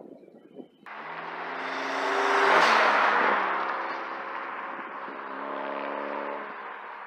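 Straight-piped Honda Civic, resonator and muffler deleted, driving past under acceleration: the exhaust builds to its loudest about two and a half seconds in, drops in pitch as it goes by, then fades as it pulls away.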